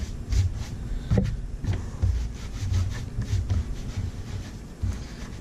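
A gloved hand rubbing topcoat into black-dyed leather wallet pieces, in irregular wiping strokes with low bumps against the wooden workbench.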